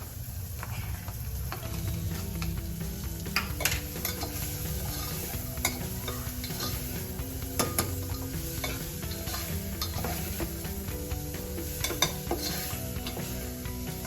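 Spoon stirring kidney beans into a sizzling tomato-onion masala in a metal pot, with occasional sharp scrapes and clicks of the spoon against the pot.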